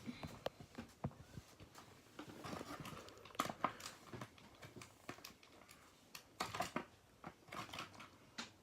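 Plastic toy packaging crinkling, with scattered irregular clicks and taps as a small figure is worked out of its box by hand.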